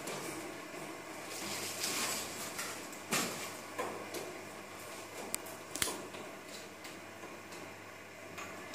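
Motorised ceiling-mount projector trolley running along its overhead rail, a steady mechanical sliding rumble with a low hum. A few sharp clicks and rattles come about three seconds in and again near the end.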